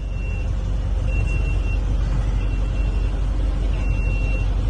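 A school bus's engine running with a steady low rumble, heard from inside the bus, while a high electronic warning beep sounds four times at even intervals of about a second and a quarter.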